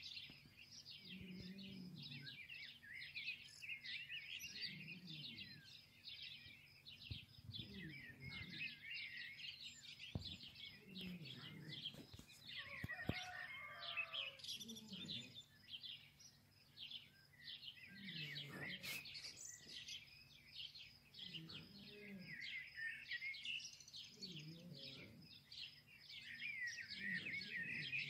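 A flock of small birds chirping and twittering without a break, a dense chatter of rapid high chirps.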